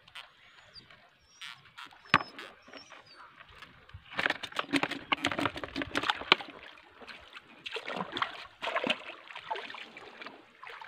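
Shallow seawater splashing and sloshing, with the crackle and clatter of a fishing net and plastic bucket being handled. It is sparse at first, then dense crackling clicks from about four seconds in to near the end.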